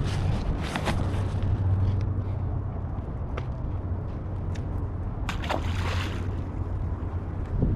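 Strong wind buffeting the microphone: a steady low rumble, with a few short sharp sounds, the most marked a little past the middle.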